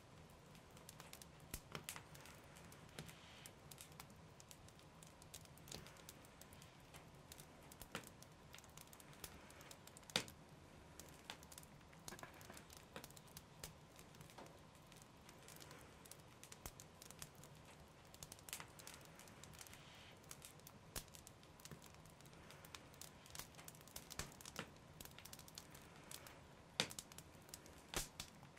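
Faint, sparse hand-work noises: scattered small clicks, crinkles and rustles as bow-making materials are handled, with a sharper click about ten seconds in and two more near the end, over a faint steady hum.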